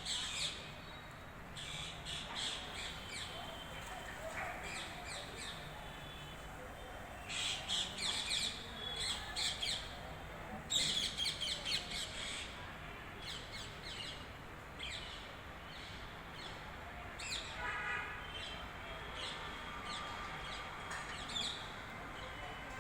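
Parrots calling: repeated short, harsh screeching calls in clusters, busiest about eight and eleven seconds in.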